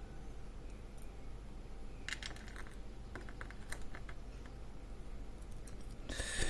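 Scattered light clicks and taps of small greasy metal lock parts, the discs and spacers of a disc-detainer padlock, being pulled apart and set down by hand. A brief, louder noisy sound comes near the end.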